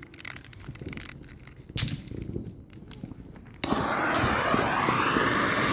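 Firework cake going off: a few faint clicks and a sharp pop, then just past halfway an abrupt, loud, steady rushing hiss that lasts about two seconds.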